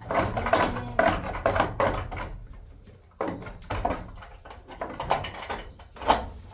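Goats calling amid a run of wooden knocks and clatter in a barn.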